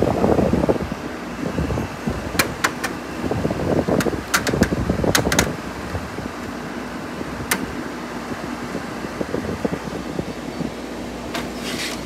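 Emerson Quiet Kool 7000 BTU window air conditioner running steadily, its fan blowing over the hum of its rotary compressor. Several sharp plastic clicks and a rustle come in the first half and a short rattle near the end as its grille and front panel are handled.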